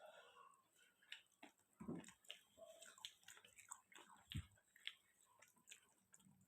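Faint chewing and small wet mouth clicks of a person eating a meal, with a couple of soft low thumps.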